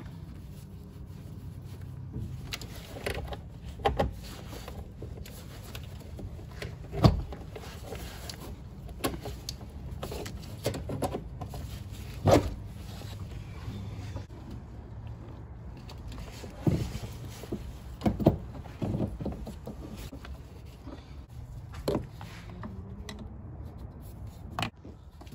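Wrench and metal brake parts clinking and knocking now and then as the lines and fittings of a brake master cylinder are worked, over a low steady hum. The sharpest knocks come about 7 and 12 seconds in.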